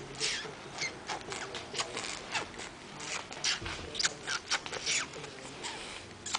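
A young child imitating a mouse with the mouth: a rapid string of short, high squeaks, many of them falling in pitch, about three a second.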